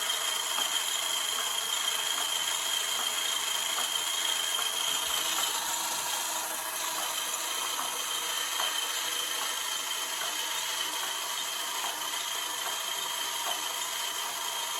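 Small electric gear motor of a homemade model tractor running steadily, with a high whine and a light clicking rattle from its gears and mechanism.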